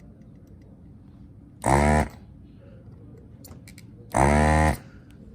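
Electric desoldering gun's vacuum pump buzzing in two short bursts, about two and a half seconds apart, as it sucks molten solder out of a circuit-board switch joint to clear the hole.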